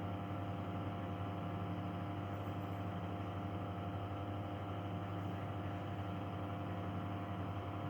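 A steady, even machine hum that holds unchanged throughout, with no distinct events.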